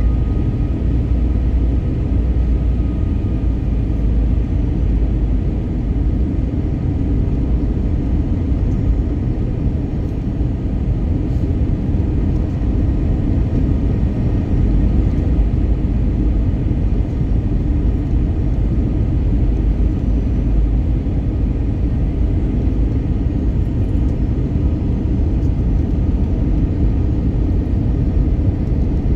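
Steady, even rumble of cabin noise inside an Airbus A320neo airliner in flight, engine and airflow noise heard from a window seat.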